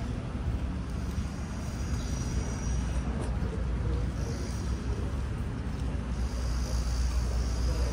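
Steady low rumble of road traffic, with wind on the phone's microphone.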